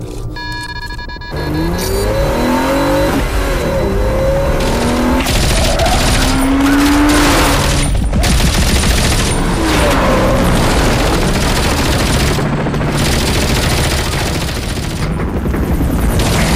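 Action-film chase sound mix: rapid automatic gunfire together with a car engine revving up and down, coming in loud about a second in after a few steady musical tones.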